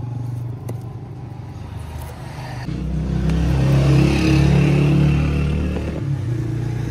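A motor vehicle engine running, swelling louder for about three seconds midway and then settling back to a steady drone.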